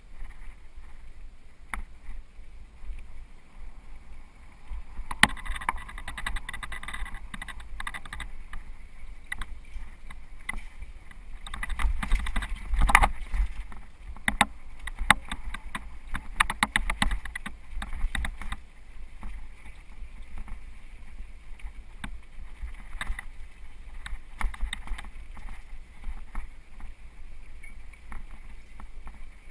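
Mountain bike riding over a dirt forest trail, recorded from a camera on the bike: a steady low rumble with frequent rattling clicks and knocks from bumps in the trail, thickest about midway through.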